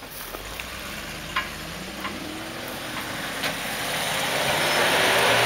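Land Rover Defender 90's engine pulling under load and revving up as it climbs out of a rutted gravel gully, getting louder toward the end, with a rising hiss of tyres working over loose gravel and dirt and a few sharp ticks of stones.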